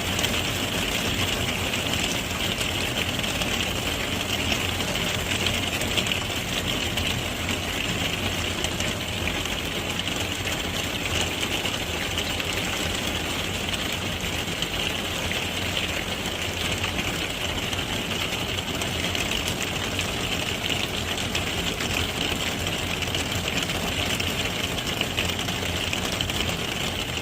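Hailstones falling on a workshop roof: a dense, steady clatter of countless small impacts.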